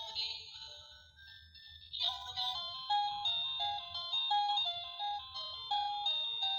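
Toy garbage truck's electronic sound module playing a tinny tune through its small built-in speaker; one tune fades out and about two seconds in another tune starts, a simple melody of steady stepped notes.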